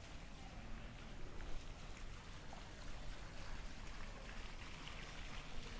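Water steadily trickling and splashing in a stone fountain pool, with faint ticks of footsteps on paving.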